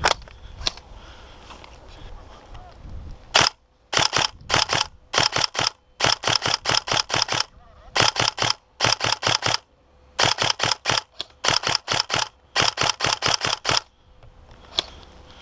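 Tokyo Marui Next Gen SCAR-L airsoft electric rifle fired in about ten quick bursts of a few shots each, from about three seconds in until near the end.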